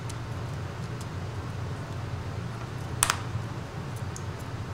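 A single sharp click about three seconds in, with a few faint ticks, as a Google Pixel XL flex-cable connector is pressed home onto its main-board socket. A steady low hum runs underneath.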